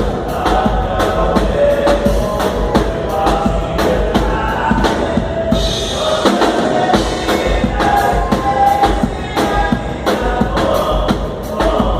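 A live dance band playing, with a drum kit keeping a steady beat of kick and snare under held melodic lines.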